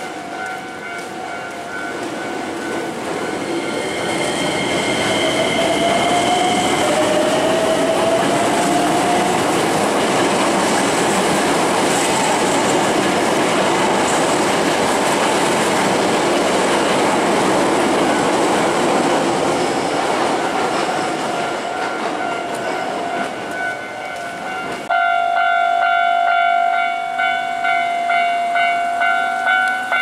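A Hankyu commuter train rolls past a level crossing, its wheel and rail noise building over the first few seconds, with a brief rising whine, and fading after about twenty seconds. Throughout, the Japanese level-crossing warning bell rings, and from about 25 seconds in it is loud and close, a steady ding repeating about twice a second.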